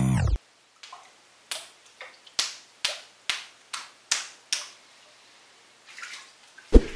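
Water balloons popping one after another as a wooden skewer pricks them in a tub of water: about a dozen quick sharp pops at a steady pace, then a louder single pop near the end.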